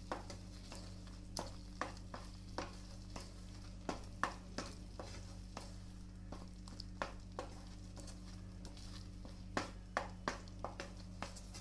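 Wooden spatula stirring and scraping a thick onion-tomato masala paste in a pan, with a faint sizzle from the butter underneath; soft irregular scrapes and taps at uneven intervals.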